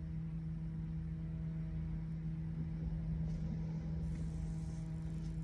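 Steady low hum inside a stationary car's cabin, with a few faint steady tones.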